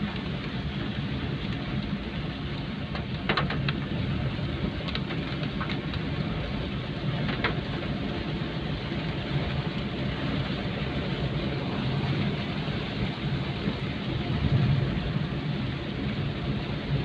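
Steady rain hiss over a low, continuous vehicle-like rumble, with a few sharp taps about three to seven seconds in.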